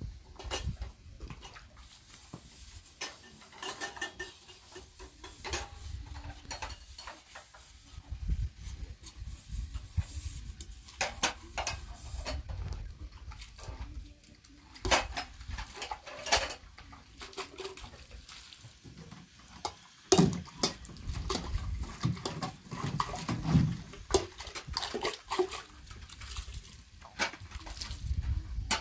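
Metal dishes being washed by hand: a metal cup and pot clinking against an aluminium basin, with splashes of water, in many short irregular clinks.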